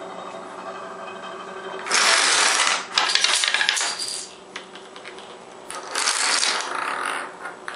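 Long rows of dominoes toppling in quick succession, a dense, rapid clatter of small pieces knocking into each other. It comes in two bursts, one about two seconds in and one about six seconds in, after a steady hum at the start.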